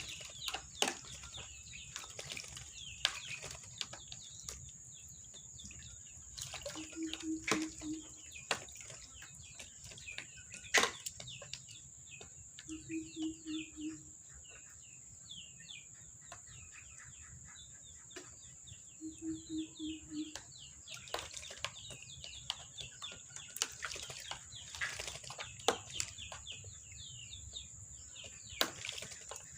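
White-breasted waterhen flapping and shaking its wings during a bath, with scattered sharp knocks and splashes and many quick high chirps. A short low pulsing buzz comes back about every six seconds over a steady high-pitched whine.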